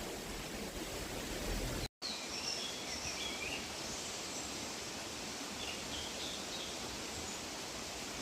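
Outdoor rural ambience: a steady rushing background with faint high bird chirps scattered through it. The sound drops out completely for an instant about two seconds in.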